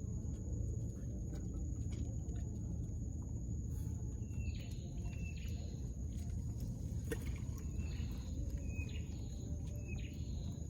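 A bird calling repeatedly, short sweeping calls about once a second in two runs, over a steady low rumble and a faint steady high-pitched whine.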